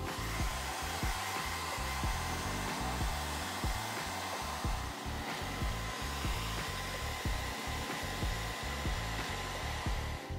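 Handheld blow dryer running steadily with a constant whine, heating contact glue on a sneaker's sole to reactivate it before bonding. Background music with a steady beat plays underneath.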